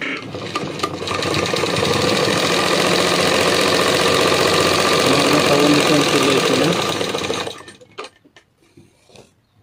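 Domestic sewing machine running steadily as it stitches through layered cotton fabric. It picks up speed over the first second and stops about seven and a half seconds in, followed by a few light clicks.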